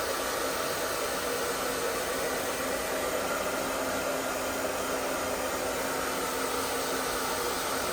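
Steady whooshing air noise of a running blower-type machine, even and unbroken, with a faint low hum.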